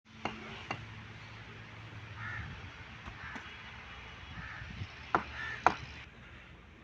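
Several sharp knocks, the two loudest near the end, with short bird calls between them.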